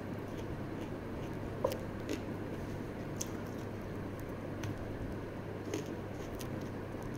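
Chewing a mouthful of raw long beans and onion: a few short, crisp crunches scattered among quieter chewing, over a steady low background hum.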